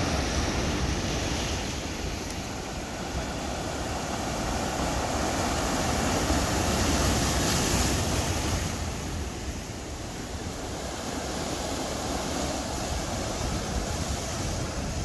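Sea surf washing in over shoreline boulders and foaming back, a continuous wash that swells to its loudest a little past the middle and then eases. Wind buffets the microphone with a low rumble underneath.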